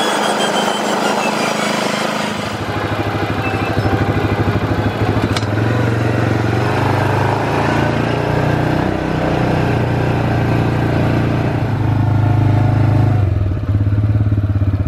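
Side-by-side utility vehicle's engine running steadily under load as it climbs a steep dirt slope, its pitch shifting up and down as it goes. A rushing hiss is heard over it in the first couple of seconds.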